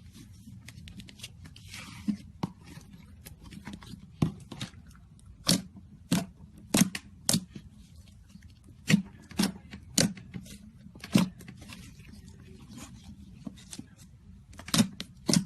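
Slime being pressed and worked by hand, giving sharp, irregular popping clicks about a dozen times over a low steady hum.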